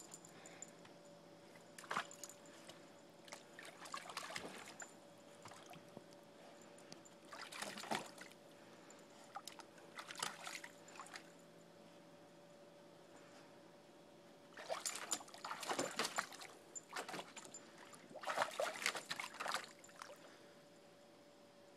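A Labrador puppy wading and pawing in a shallow plastic kiddie pool, water splashing and sloshing in irregular bursts that grow busier in the last several seconds.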